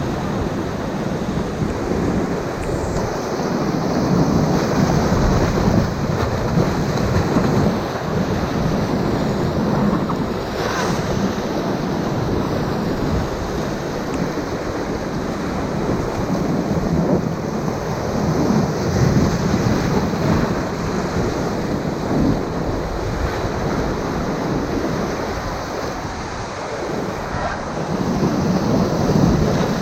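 Whitewater of a Class IV river rapid rushing and crashing around a raft held surfing in the rapid's hole, a steady loud wash of water noise.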